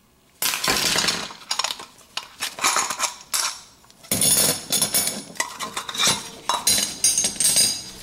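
Metal garbage-disposal mounting hardware (snap ring, mounting rings with their screws, sink flange) clinking and scraping as it is pulled apart by hand. After a brief hush the clatter starts about half a second in and carries on as a run of short clinks, busiest in the second half.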